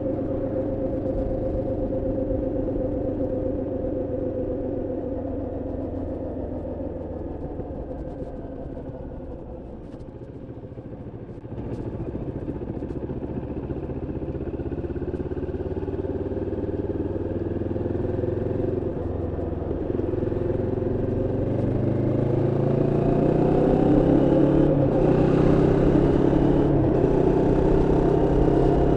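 Moto Morini X-Cape 649's parallel-twin engine on the move during its break-in ridden gently: the engine eases off and goes quieter about a third of the way in, then pulls again, its pitch and level climbing steadily toward the end.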